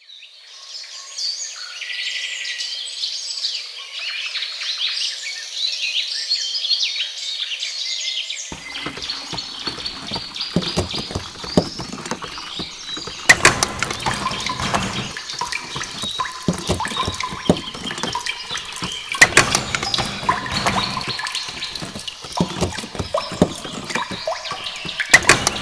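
Birds chirping. About eight seconds in, a hand pump starts: water gushes and splashes, with repeated sharp clanks and knocks.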